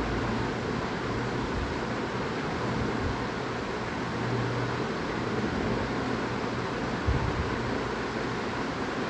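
Mutton in spiced onion-tomato masala sautéing in an aluminium pressure cooker as a steel ladle stirs it: a steady sizzling hiss over a low hum, with a soft knock about seven seconds in.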